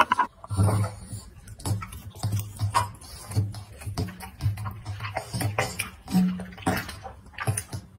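Background music with a steady bass beat and sharp ticking clicks.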